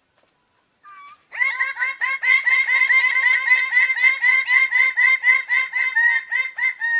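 Bird-of-paradise calling: after a single short note, a long rapid series of loud, evenly repeated notes, about three a second, each note falling slightly in pitch.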